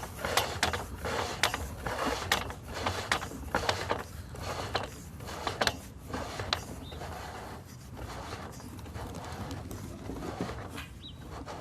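Irregular clicks, knocks and scraping from a sewer inspection camera's push rod being fed through the pipe, busiest in the first half and thinning out after about seven seconds.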